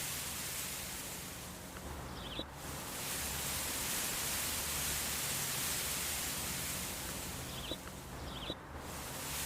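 Steady breeze, an even rushing hiss that dips briefly twice, with a few faint short high chirps at the dips.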